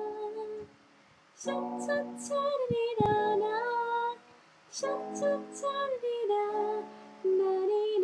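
A young woman singing a melody in three phrases, with short pauses about a second in and about four seconds in.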